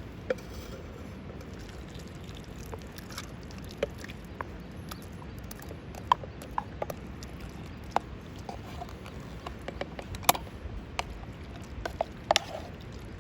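Wood campfire crackling: irregular sharp pops and snaps, a few louder ones, over a steady low rumble.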